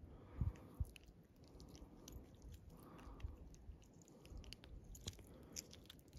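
Faint close handling sounds as fingers work a treble hook out of a landlocked salmon's mouth: a few small clicks and soft rustles, with a soft thump about half a second in.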